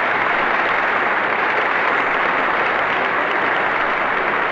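Large crowd applauding steadily on an archival speech recording.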